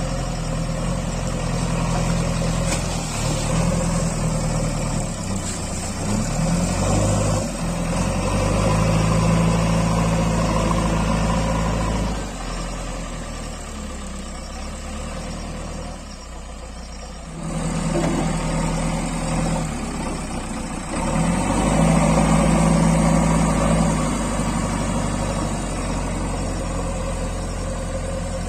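JCB backhoe loader's diesel engine working, revving up under load and dropping back several times, with a quieter spell in the middle before it picks up again.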